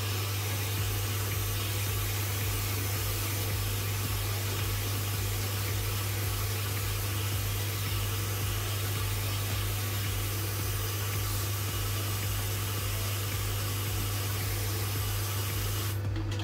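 Pressure sprayer misting water into a tarantula enclosure to raise its humidity: a steady hiss that stops shortly before the end.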